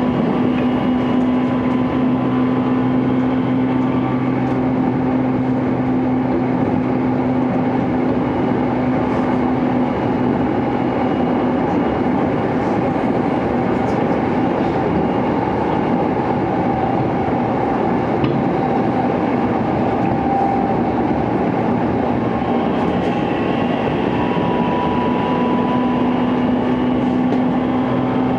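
Running noise inside a JR East E233-2000 series motor car at speed, with the traction motors' steady hum that fades about ten seconds in and returns near the end. This set's motors are louder than on other E233-2000 trains.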